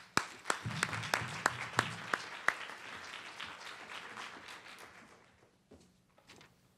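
Audience applause, with one person's claps close to the microphone standing out at about three a second; the applause dies away about five seconds in.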